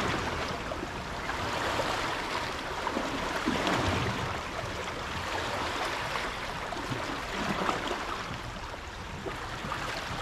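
Wake waves from a passing boat washing and splashing against the shore in uneven surges.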